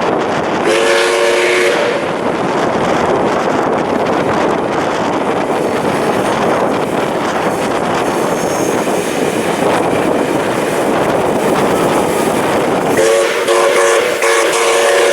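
Steam locomotive's chime whistle sounding a short blast about a second in and a longer one near the end, over the steady noise of the moving train.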